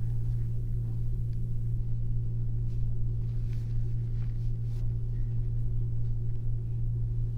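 Steady low electrical hum, a mains buzz with its evenly spaced overtones, with a few faint small ticks; no speech.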